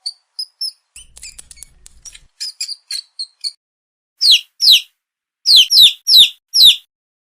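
Parrot calls: quick high chirps for the first few seconds, then six loud, harsh screeches, each falling in pitch.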